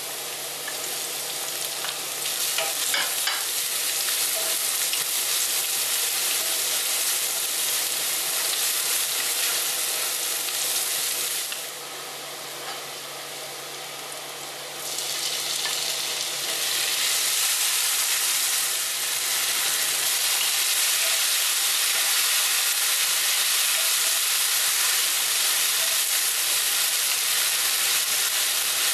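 Chopped shallots, garlic and red chilies sizzling in hot oil in a frying pan as a wooden spatula stirs them. The steady sizzle grows louder a couple of seconds in, drops back for a few seconds about halfway, then swells again and holds as the chilies go into the oil.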